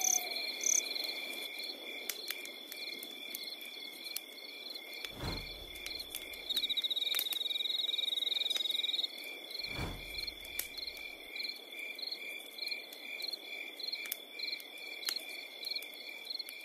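Night-time ambience of crickets chirping in steady pulses, with a louder insect trill for a couple of seconds in the middle and sharp crackles as from a campfire. Two deep low thuds land about five and ten seconds in.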